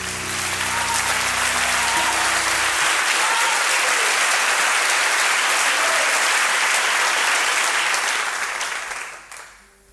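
Theatre audience applauding at the end of a song, with the last sustained instrument notes ringing under the clapping for the first couple of seconds. The applause dies away about nine seconds in.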